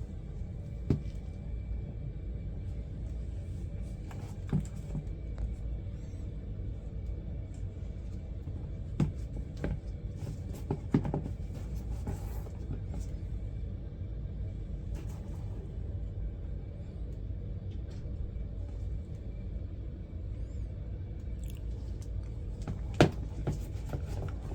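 Steady low rumble with a handful of short, sharp knocks and clicks scattered through it, the loudest near the end.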